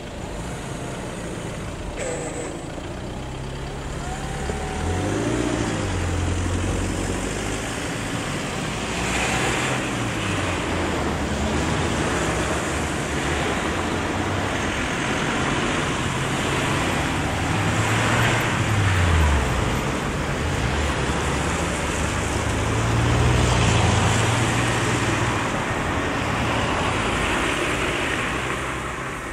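Road traffic: cars driving over a railway level crossing one after another, each one's engine and tyre noise swelling and fading as it passes.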